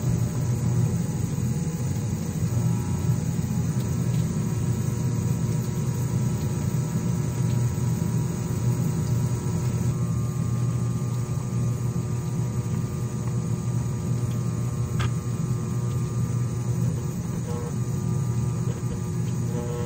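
Dental lab vibrator running with a steady, even hum as dental stone is vibrated into an impression to pour a model.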